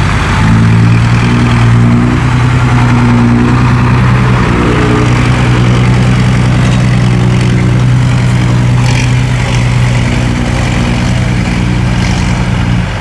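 Diesel engine running steadily at a near-constant pitch, with slight changes in speed.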